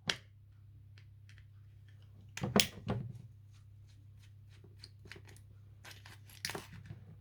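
Small parts of a solar gadget being pulled off by hand: a click, then a tearing scrape about two and a half seconds in, light ticks, and another scrape near the end. Under it all runs a steady low hum.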